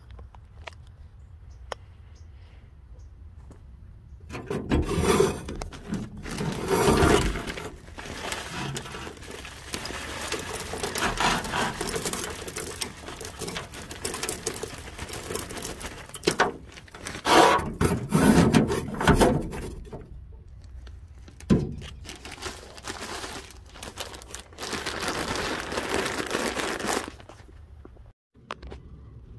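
Dry wood chips being poured into a metal box smoker, a rustling, crackling patter that comes in several louder and quieter spells starting about four seconds in and stopping shortly before the end.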